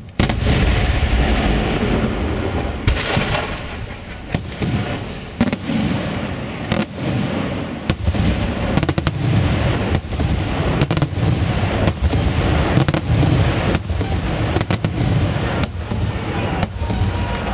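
Aerial firework shells bursting in rapid succession: a dense, continuous barrage of sharp bangs and deep booms with crackle. It starts abruptly with a loud burst.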